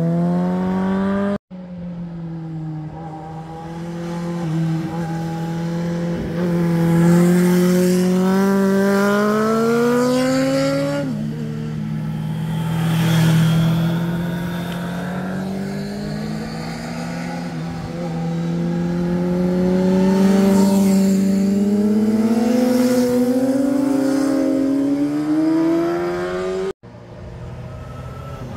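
Sport motorcycles accelerating through a bend, their engine notes climbing steadily in pitch as the throttle is opened, with a sudden drop in pitch about eleven seconds in. The sound cuts out briefly twice.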